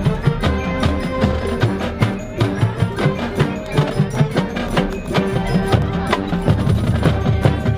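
High school marching band playing, with drums and mallet percussion striking a busy, even rhythm over held pitched notes; a deep bass note comes in near the end.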